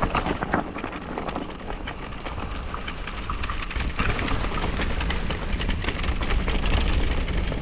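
Mountain bike rolling fast downhill on a rough dirt and grass singletrack: a steady tyre rumble with a constant rattle and clatter of the chain and frame over bumps, and wind rumbling on the microphone.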